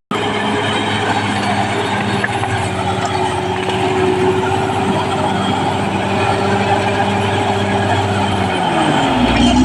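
Caterpillar D6R crawler bulldozer's diesel engine running steadily under load. About nine seconds in, the engine note drops sharply in pitch, then starts to climb again.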